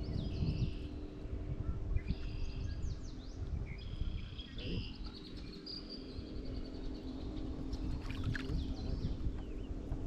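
Small songbirds chirping and trilling in several short phrases, one a quick run of repeated notes, over a low rumble and a faint steady hum.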